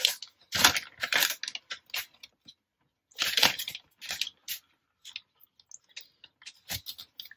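Plastic zip-top bag crinkling in several short bursts as it is opened and handled, followed by scattered light clicks as a plastic hand-held lemon squeezer is pressed over it.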